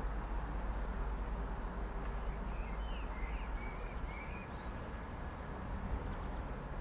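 Steady low background rumble of a railway platform, with a few short bird chirps around the middle.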